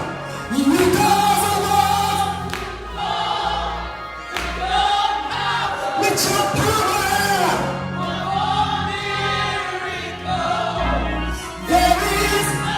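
Gospel song in a church service: voices sing long, bending held notes over a steady instrumental accompaniment with light drum hits.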